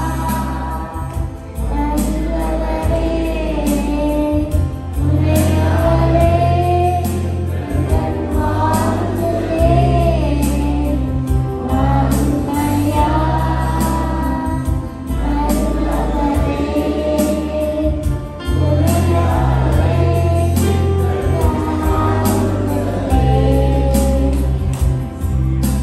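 A young girl singing a Christian song into a microphone over an instrumental backing with steady bass notes and a regular drum beat.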